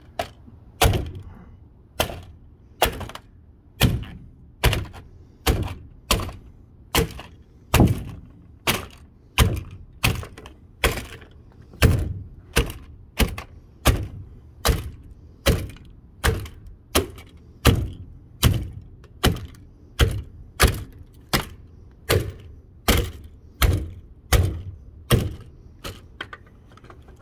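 Repeated hard blows of a striking tool smashing an old household appliance, a little more than one impact a second, kept up at an even pace.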